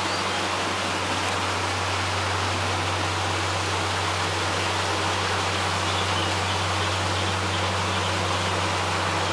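Steady rush of water pouring over and through a canal lock's upper gate, over the low steady hum of narrowboat engines.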